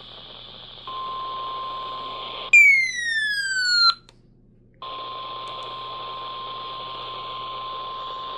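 NOAA Weather Radio's steady 1050 Hz warning alarm tone over radio hiss, the attention signal that comes before a warning message. About two and a half seconds in, a louder falling electronic sweep cuts in for over a second. After a brief near-quiet gap, the steady tone and hiss resume.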